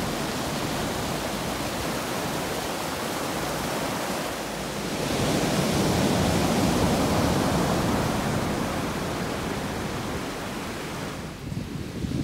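Glacial meltwater river rushing over stones, then, about five seconds in, louder ocean surf breaking and washing up the beach, with a brief lull near the end before the next wave.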